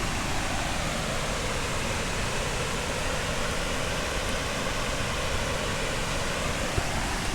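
Steady rushing of a waterfall in the gorge below, an even wash of water noise with no change in level.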